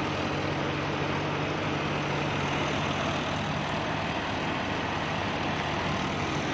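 John Deere 5075E tractor's diesel engine running at steady speed under load while it works a rotary tiller through the soil.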